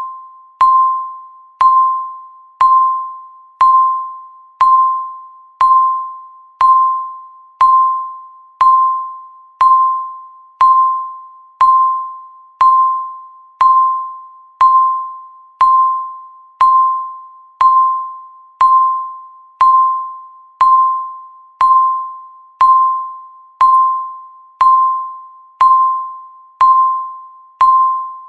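Countdown timer's electronic tick, sounding once every second: each tick is a sharp click with a clear ringing tone that fades before the next.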